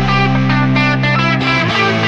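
Background music led by electric guitar, with quick repeated notes over a sustained bass that changes pitch near the end.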